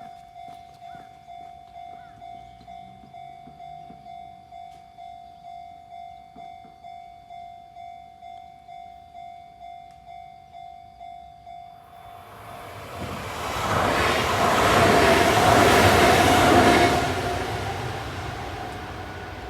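Japanese level-crossing warning bell ringing steadily, about two dings a second. About twelve seconds in, a Kintetsu Minami-Osaka Line electric train comes through the crossing; its passing noise swells and drowns out the bell, stays loud for a few seconds, then fades as it goes by.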